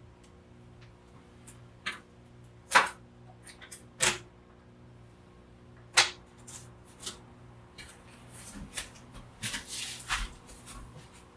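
A cord being cut by hand: several sharp snips or clicks, irregularly spaced, the loudest about three and six seconds in, then a short run of rustling and scraping handling noise near the end.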